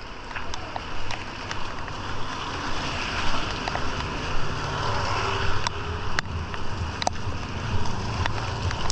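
Heavy rain falling, with scattered sharp drops tapping close by and wind rumbling on the microphone.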